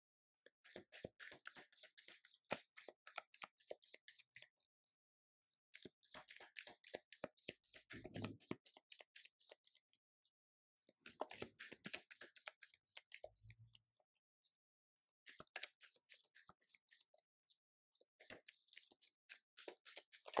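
A tarot deck being shuffled by hand: quick runs of cards flicking against each other in about five bursts with short pauses between. There are a couple of dull knocks partway through.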